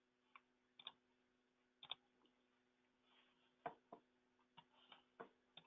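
Faint, irregular clicks of a computer mouse, about nine of them, over a low steady electrical hum.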